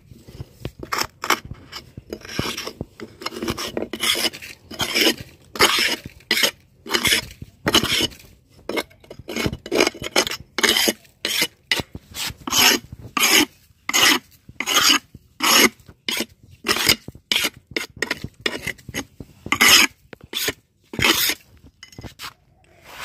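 Repeated rasping strokes across a concrete slab, about one to two a second, as dirt is cleared off its surface; they stop shortly before the end.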